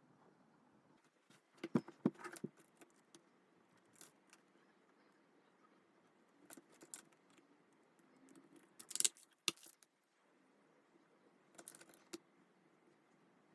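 Hands handling album packaging and its contents: scattered rustles and clicks, busiest about two seconds in and again around nine seconds, over a faint steady background.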